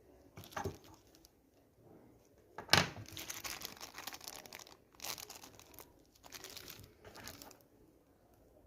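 Wrapping or packaging being crinkled and torn open by hand, in several bursts of rustling, with a sharp snap about three seconds in.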